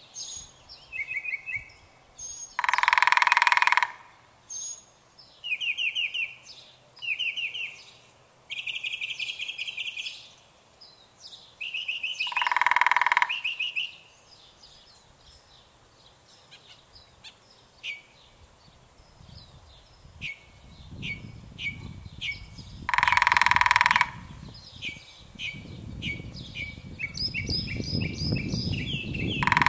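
Birds calling: many short rapid trills and chirps, broken about every ten seconds by a loud harsh call lasting about a second. A low rumble rises in the second half.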